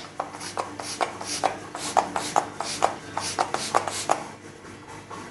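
Pump-mist setting spray bottle (MAC Prep + Prime Fix+) sprayed over the face in quick repeated pumps, a short hiss about four times a second, stopping a little after four seconds in.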